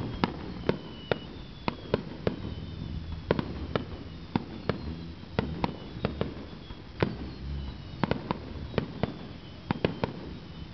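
Aerial firework shells bursting overhead in a rapid, irregular series of sharp bangs, two or three a second.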